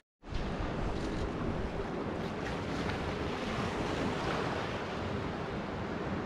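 Baltic Sea waves washing steadily around the pier's pilings, mixed with wind on the microphone, after a split-second gap at the very start.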